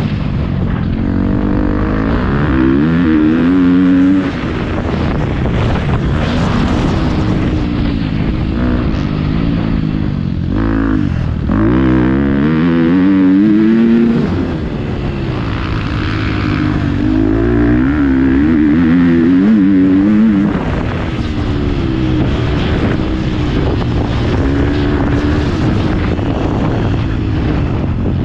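Motocross bike's engine heard from on board, revving up through the throttle and dropping back again and again, its pitch climbing over a second or two and then falling off.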